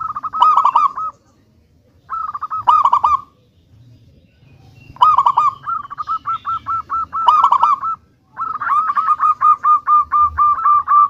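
Zebra dove (perkutut) calling in fast runs of short, evenly repeated cooing notes, about seven a second, in four bouts with short pauses between them; the last run is the longest.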